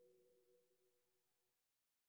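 Near silence; the soundtrack goes completely dead about a second and a half in.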